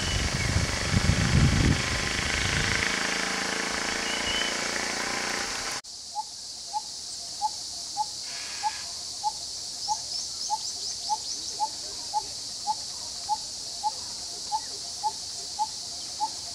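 Outdoor ambience with a low rumble and a few faint bird calls. About six seconds in, the sound cuts to a steady high insect drone, over which a short chirp repeats about twice a second.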